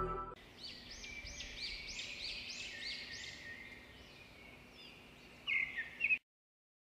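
A bird chirping faintly: a run of repeated high arched chirps, about two a second, then two louder, sharper notes near the end before the sound cuts off abruptly.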